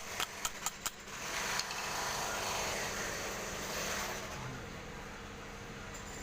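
Four quick sharp taps in under a second as a new ball bearing is knocked onto the window AC fan motor's shaft, followed by a steady noisy background.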